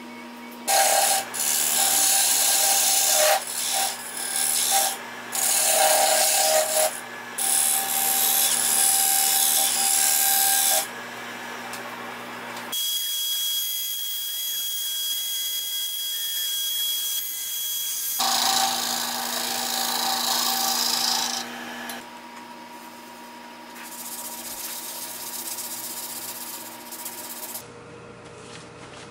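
A power tool working wood in repeated loud bursts over a steady machine hum. Then a CNC router spindle runs with a steady high whine, followed by more loud cutting noise.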